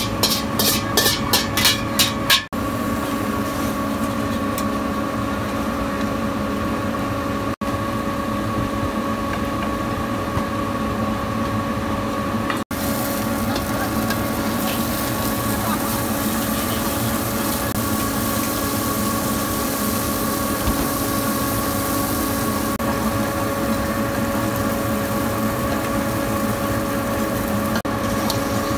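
A metal wok spatula scrapes and taps rapidly against a carbon-steel wok for about two and a half seconds. Then a gas wok burner runs with a steady rushing noise and a constant hum while shrimp fry in oil in the wok.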